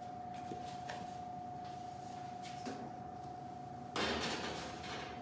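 Quiet room tone with a steady faint high-pitched hum. About four seconds in, a sudden burst of scraping noise as a steel baking pan is slid onto the rack of an electric range's oven, fading over about a second.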